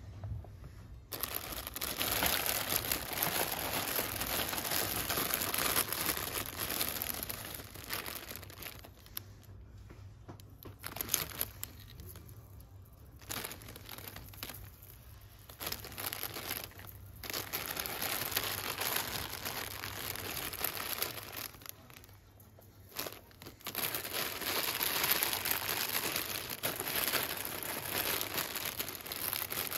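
Clear plastic sleeves around hanging beaded necklaces crinkling as a hand brushes and pushes through them; the rustling comes in long stretches with a few short pauses.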